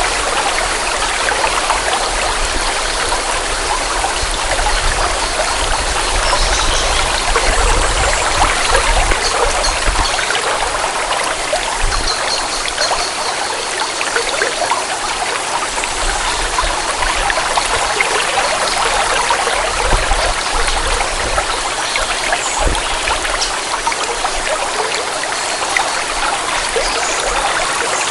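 A forest stream flowing steadily, a continuous even rush of running water.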